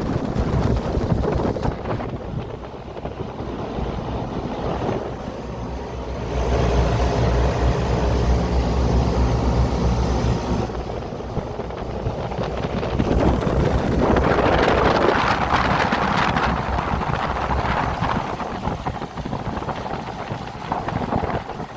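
Goodman 5-ton package air conditioner running: a steady low hum from the compressor and condenser fan, with a rush of fan air on the microphone that swells about two thirds of the way through.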